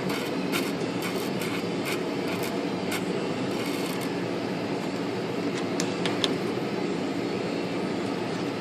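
A steady mechanical hum, with scattered light clicks and taps of metal on metal as the Olympia SG typewriter's bent platen shaft is levered with a tube slipped over it.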